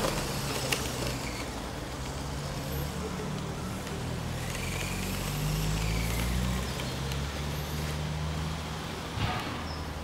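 Radio-controlled 6x6 scale truck driving over a dirt path, its motor and gears whining faintly, rising and falling with the throttle, over a steady low rumble; one knock near the end.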